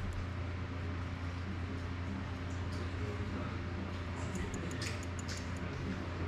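A steady low hum with a few faint light clicks about two thirds of the way in, from small hand tools being handled on a workbench mat.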